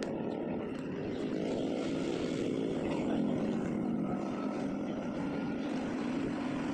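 Steady rumble of road traffic, with motor vehicle engines running on the street, swelling slightly midway.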